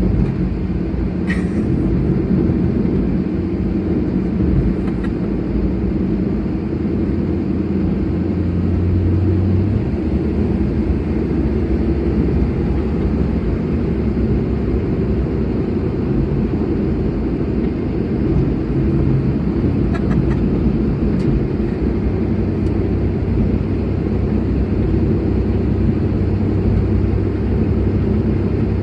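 An engine running steadily at a constant speed, its low note shifting slightly a couple of times, now running after a repair.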